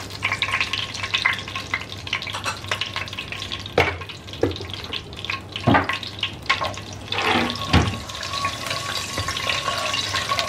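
Whole spices (bay leaf, cinnamon, cardamom and cumin seeds) sizzling and crackling in hot sesame oil and ghee, stirred with a wooden spatula that knocks against the pan three times.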